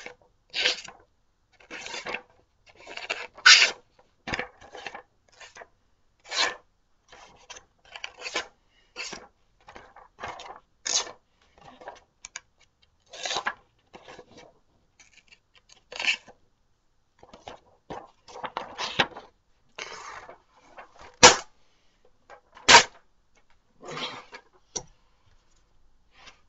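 A dull knife blade dragging and snagging through paper, a string of uneven rasping, rustling strokes with a couple of sharp snaps near the end: the edge is catching and tearing rather than slicing, the sign of a blunt knife.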